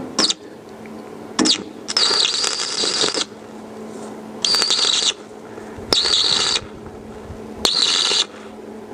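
Stick (MMA) welding arc from an inverter welder, crackling and hissing in short bursts as tack welds are laid on a wheelbarrow's steel tube frame. Two brief strikes come in the first second and a half, then four longer bursts of about half a second to a second each, with pauses between.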